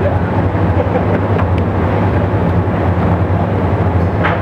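A steady, loud background hum with an even hiss over it, unchanging throughout, and a few faint light clicks.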